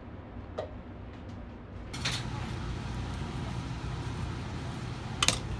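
Steady background hum of a food-stall kitchen with a few faint clicks; about two seconds in, the background noise gets louder and hissier. Near the end comes one sharp knock of a knife against a plastic cutting board as a banana is cut.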